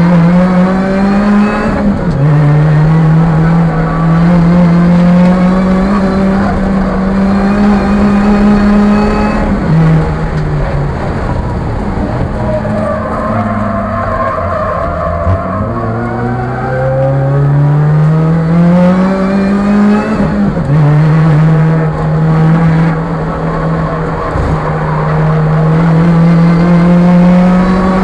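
Supercharged four-cylinder engine of a Chevrolet Cobalt SS race car, heard from inside the cabin, pulling hard with the revs climbing and dropping at each upshift. About ten seconds in it lets off for a corner, and the tyres squeal briefly through the turn. The engine then revs up through the gears again.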